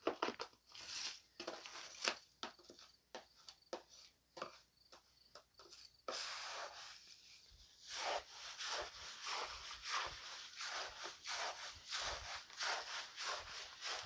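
Hand trowel stirring wet, freshly shredded lump charcoal in a plastic tote: repeated crunching scrapes, about three a second, that grow louder and denser about six seconds in.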